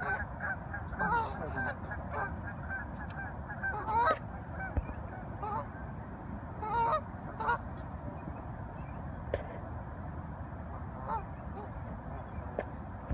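Waterbirds calling: short pitched calls in quick runs, most of them in the first eight seconds and only a few after, over a steady background noise.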